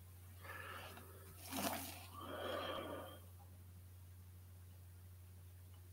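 A man's faint breathing: three soft breaths in the first half, the sharpest about a second and a half in, over a low steady hum.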